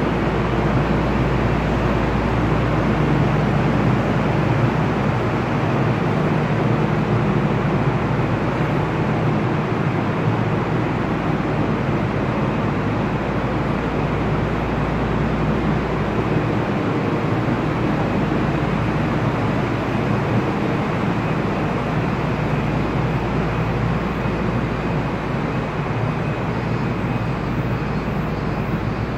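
Steady hum of a Shonan Monorail suspended train and its running equipment, an even drone with a low rumble that neither rises nor falls.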